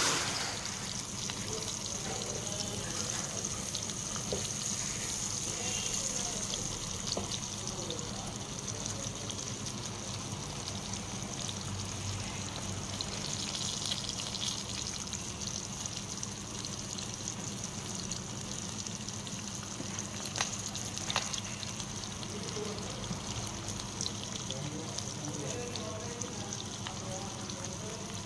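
Whole masala-coated fish frying in hot oil in a pan, a steady sizzle with scattered small pops.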